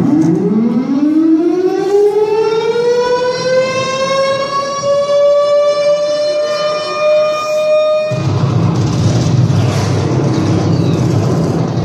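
Air-raid siren sound effect played over stage loudspeakers: one long tone that rises steeply, then levels off, and cuts off abruptly about eight seconds in. A low, steady rumble follows.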